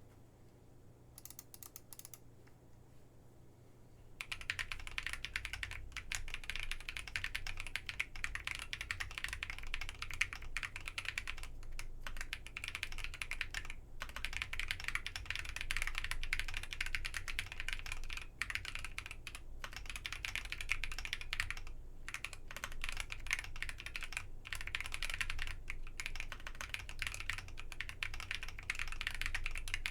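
Typing on an IV Works AV3 custom mechanical keyboard with Kinetic Labs Salmon tactile switches, a POM plate, plate foam and ePBT PBT keycaps. After a few faint clicks, fast continuous typing starts about four seconds in and runs on with only short pauses.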